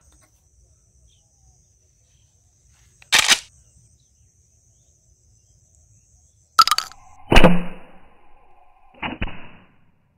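Bamboo slingshot pistol shots: a sharp crack about three seconds in, then a cluster of cracks and smacks about seven seconds in and another about nine seconds in, the later ones followed by a steady ringing tone. A faint high steady whistle runs under the first part.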